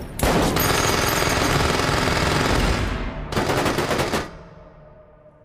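Rapid automatic gunfire: one long burst of about three seconds, a brief break, then a second burst of about a second, with the echo dying away afterward.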